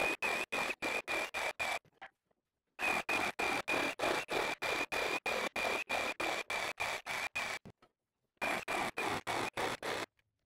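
Ryobi P517 brushless cordless reciprocating saw cutting pine 2x4, a steady high whine chopped into rapid pulses, about five a second. The pulses come in three runs broken by short gaps of dead silence, a sign that the footage of the cuts is sped up.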